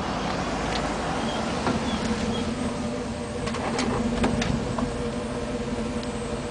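1998 GMC Sierra K1500's 5.7-litre 350 V8 running through a Flowmaster muffler: a steady, low exhaust drone at an even engine speed as the truck drives past. A few sharp clicks come through about three and a half to four and a half seconds in.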